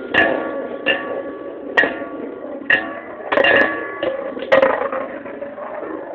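Two metal Beyblade spinning tops, Dark Wolf DF145FS and Rock Leone 145WB, whirr round the stadium and clash again and again. Each hit is a sharp metallic clink that rings briefly. The clashes come about once a second at first, then several follow quickly around the middle.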